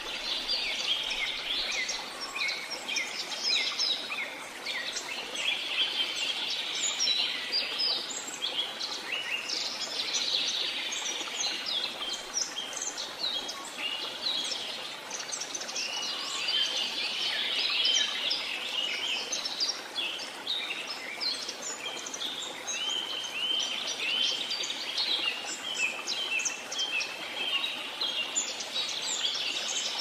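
A chorus of many songbirds chirping and trilling without pause, over a steady rush of flowing water.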